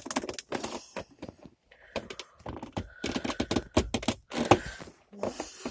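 Irregular clusters of sharp clicks and creaks from a car gear or handbrake gaiter's plastic trim frame and clips being pushed and wiggled into the centre console.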